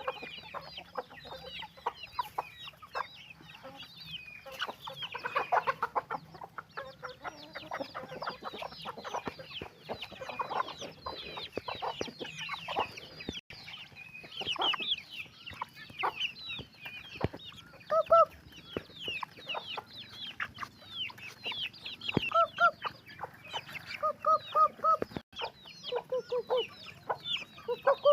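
A flock of domestic chickens calling continuously: a dense stream of short, high, falling calls, with lower clucks in little runs of two or three in the second half.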